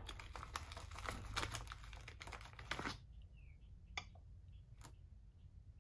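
Hand handling loose copper rifle bullets on a wooden bench: a dense run of small clicks and rustles for about three seconds, then two sharp single clicks as a bullet is set on the digital scale.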